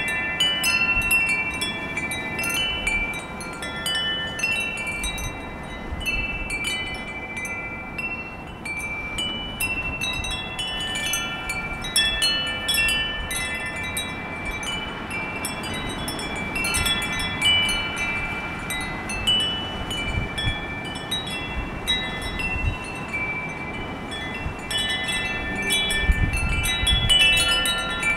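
Tubular wind chimes ringing in a gusty wind: many high, overlapping tones struck again and again in clusters, busiest at the start and near the end and thinner in the middle. A low rumble of wind swells near the end.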